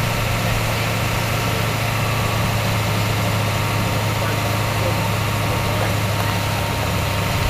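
A steady, low engine-like drone with a constant hum, running evenly with no change.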